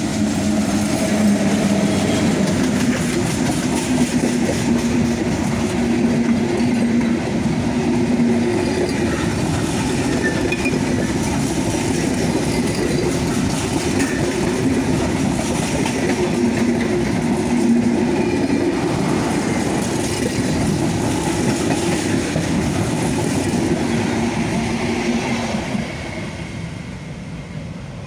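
Bangladesh Railway diesel locomotive and its long rake of passenger coaches passing close by: a loud, steady rumble of the engine and of wheels on rail that fades near the end as the last coaches go by.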